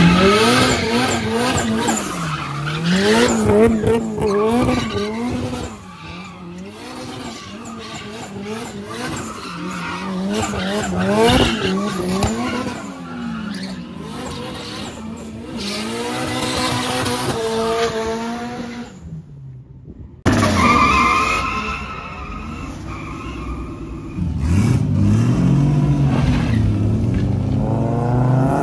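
Drift car engine revving hard, its pitch swinging up and down again and again, with tyres squealing. Near two-thirds of the way through the sound cuts out for about a second, then returns with the revs climbing.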